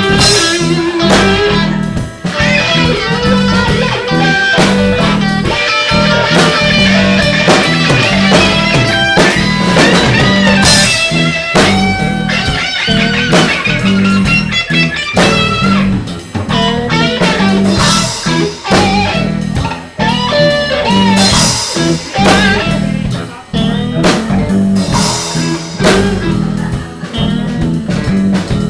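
Live blues band playing an instrumental break: lead electric guitar with gliding, bent notes over bass guitar and a drum kit.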